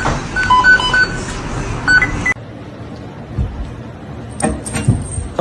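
A quick run of short electronic beeps at a few different pitches, cut off abruptly about two seconds in. A quieter stretch with a few soft knocks follows.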